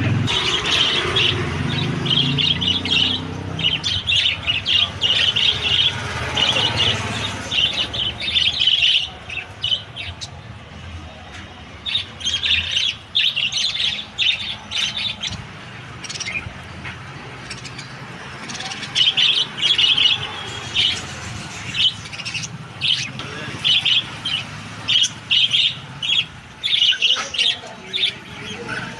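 Small pet parrots chirping in quick, repeated bursts of high chirps. A low rumble sits under the first seven or so seconds and then fades.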